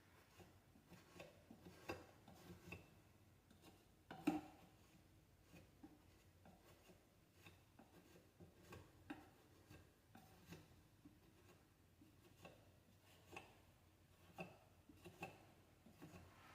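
Faint, irregular scrapes and light taps of a putty knife spreading spackle into scratches on a wooden door frame, with one sharper knock about four seconds in.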